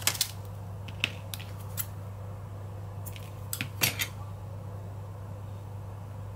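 Light clicks and taps of small metal craft items, a split ring and a needle, being handled on a tabletop: a few scattered ticks with a small cluster about three and a half to four seconds in, over a steady low hum.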